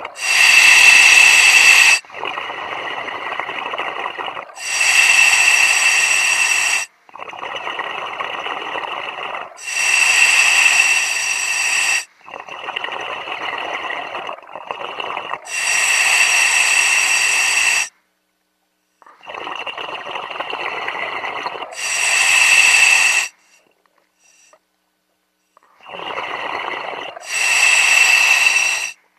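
A diver breathing through a regulator in regular cycles, about one full breath every five seconds. Each breath is a quieter rushing phase followed by a louder hissing phase with a thin whistle in it.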